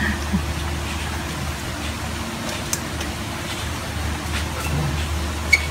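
Steady low background rumble with a faint steady hum, and a few faint clicks.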